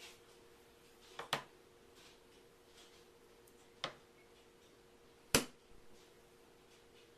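A few sharp knocks or taps on a hard surface: a quick double knock about a second in, a single one near four seconds, and the loudest a little after five seconds, over a faint steady hum.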